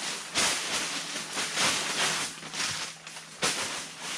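Packing paper rustling and crinkling as it is pulled and bunched out of a cardboard parts box, with one sharper crackle about three and a half seconds in.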